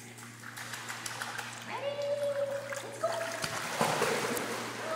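Pool water splashing as a puppy enters the water and swims, the splashing loudest about four seconds in. A few drawn-out high calls, each held about a second, sound over it.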